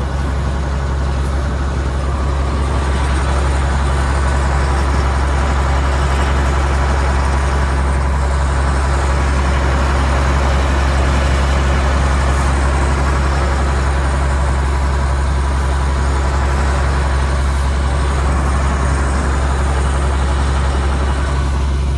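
Case IH 2388 combine running steadily under harvest load, a loud, unchanging low drone with a hiss of machinery noise above it.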